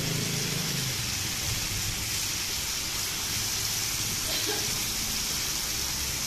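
Cast-iron skillets of meat and potatoes in gravy sizzling and simmering on the burners: a steady hiss.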